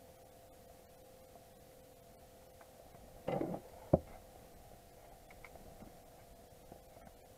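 A faint steady two-tone hum, with a brief rustle about three seconds in and a single sharp knock just before four seconds.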